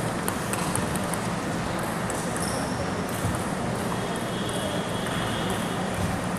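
Table tennis ball ticking sharply on tables and bats, a quick run of light ticks in the first second or so, then only scattered ones, over a steady hall hum.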